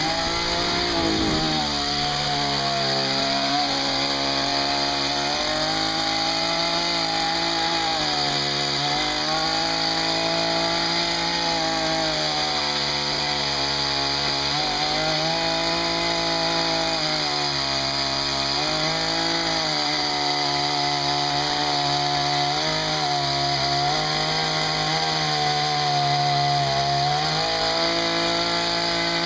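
ZOMAX 5800 two-stroke petrol chainsaw running at high revs throughout. Every few seconds its pitch dips and climbs back as the chain bogs under load cutting into wood.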